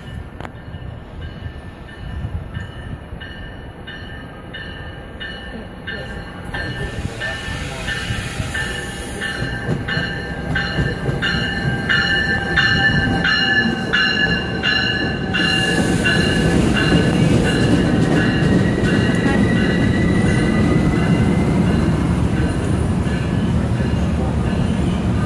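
MARC bilevel commuter train arriving at a platform: its bell rings about twice a second as it approaches, then the low rumble of the wheels and cars grows louder as the train rolls in. A thin rising squeal sounds near the end as it slows.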